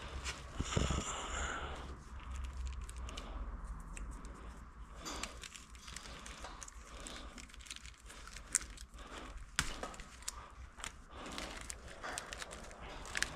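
Hands working on an engine wiring harness: plastic crinkling and rustling with many scattered small clicks and taps, over a steady low hum.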